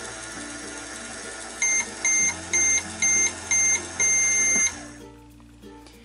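Just Like Home toy microwave running with a steady electronic hum, then beeping six times in quick succession, the last beep longer, to signal the end of its cooking cycle.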